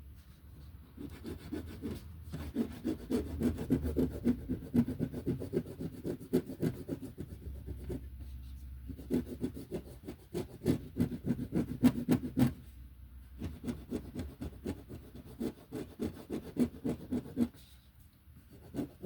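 Rapid back-and-forth coloring strokes scraping across paper, in three stretches with short pauses about eight and thirteen seconds in, stopping shortly before the end.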